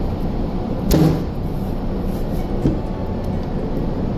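Steady machinery hum, with a sharp knock about a second in and a lighter one a little before three seconds in, as a hydraulic pressure relief valve cartridge is pressed down against the workbench.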